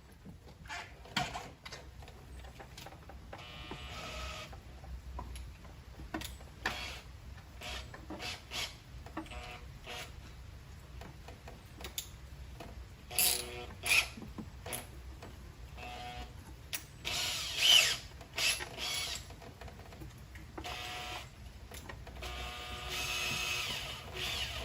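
Scattered knocks, clicks and scraping from hands working a rubber sunroof drain tube through a freshly drilled hole in the car's body, with a few louder brief bursts.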